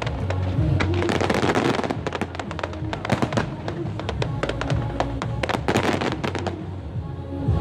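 Fireworks display: many rapid bangs and crackles of bursting shells throughout, over music playing.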